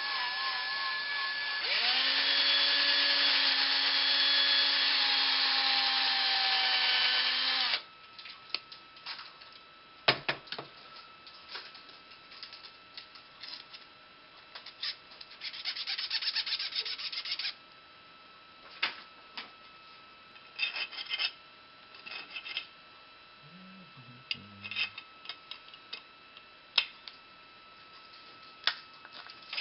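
Electric power drill running for about eight seconds, its pitch wavering at first and then steady, before cutting off suddenly. After that come scattered clicks, taps and a short scrape as a steel rod is handled and fitted into a printed plastic part.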